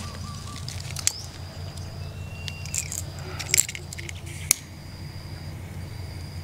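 A few light clicks and clinks of small objects being handled, over a steady low hum and a faint, on-and-off high insect tone.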